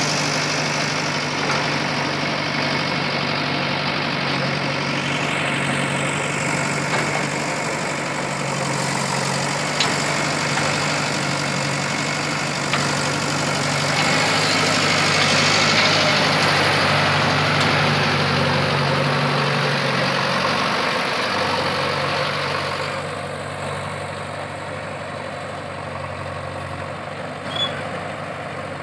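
JCB backhoe loader's diesel engine running steadily as the machine works its backhoe arm, with a few light knocks. The engine gets quieter about three-quarters of the way through.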